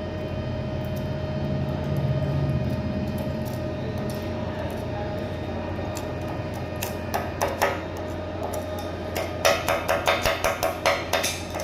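Steady electrical hum, then a run of sharp knocks that starts about seven seconds in and quickens to about four a second near the end.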